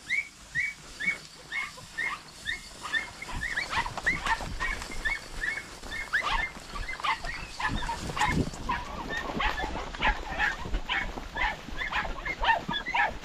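Podenco hounds yelping in quick, regular series while running a rabbit's trail, one dog at first, then several overlapping voices from about four seconds in.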